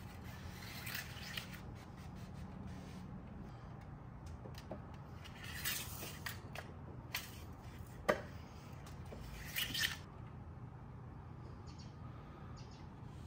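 Faint handling noises from checking engine oil: a microfiber towel rubbing on the dipstick and the dipstick clicking and scraping as it slides in and out of its tube. The noises come as a few light clicks and short rustles, with the loudest scrape a little past two-thirds through, over a low steady hum.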